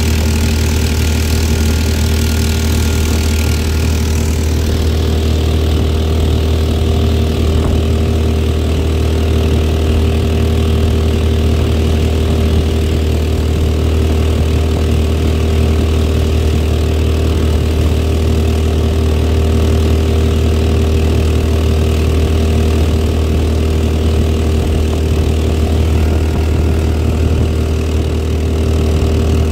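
Harbor Freight 459cc single-cylinder engine running steadily at a constant speed, pushing a jon boat. A higher hiss over the engine eases off about four seconds in.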